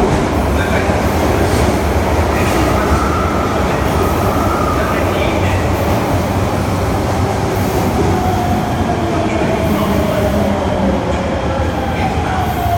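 Osaka Metro 66-series subway train running into the station platform, with a steady loud rumble of wheels on rail. Over the last few seconds a motor whine falls slowly in pitch as the train brakes to a stop.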